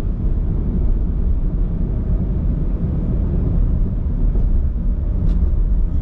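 Steady low rumble of road and engine noise heard from inside a moving car's cabin.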